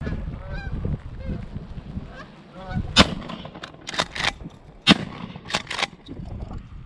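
Canada geese honking, then two shotgun blasts about two seconds apart from a pump-action shotgun. Each blast is followed by a quick pair of sharp clacks, the fore-end being pumped back and forward to chamber the next shell, while the geese keep calling.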